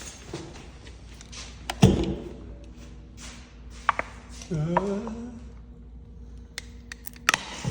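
Plastic ranch dressing bottle being crushed in a press: sharp cracks and pops as the plastic gives way, the loudest about two seconds in, and a short rising creak around the middle.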